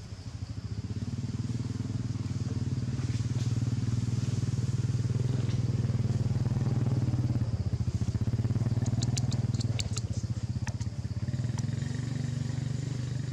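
A small engine running steadily with an even low pulsing hum, and a few sharp high clicks about nine to ten seconds in.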